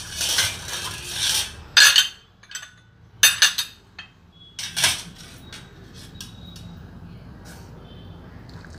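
Ceramic soup bowls and spoons clinking and a steel ladle and pot knocking as soup is served out, with a string of sharp clinks in the first five seconds, the loudest about two, three and five seconds in, then only a few faint ticks.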